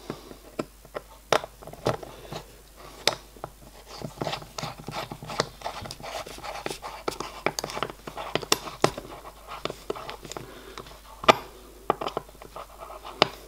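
Small metal parts of a model locomotive's valve gear rocking shaft and bracket pin being handled and fitted together: irregular light clicks, taps and scraping of metal on metal, busiest in the middle.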